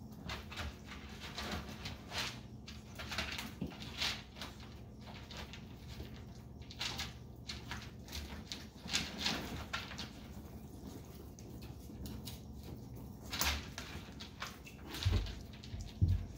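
Chihuahua puppies at play on a tiled floor: scattered light clicks, scuffles and rustles of paws on tile and in a pellet-filled litter box, with a couple of soft thumps near the end.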